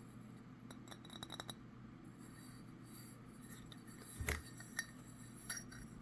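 Faint handling of a ceramic trinket box: a few light clicks, then a sharper knock about four seconds in and a couple of smaller taps, as the piece and its lid are moved.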